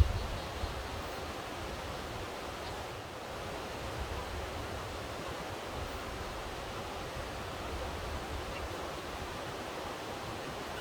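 Steady rushing of a valley stream flowing over rocks, with a fluttering low rumble of wind on the microphone and a brief bump right at the start.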